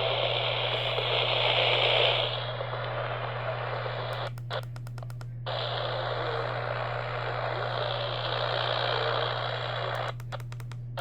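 AM radio receiver static: a steady hiss over a constant low hum with no programme audio. About four seconds in and again near the end, the hiss drops out for about a second, replaced by a run of rapid clicks.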